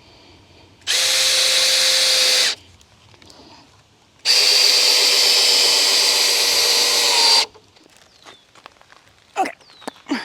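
Power drill running at a steady speed in two bursts, a short one and then a longer one of about three seconds. A few short knocks near the end.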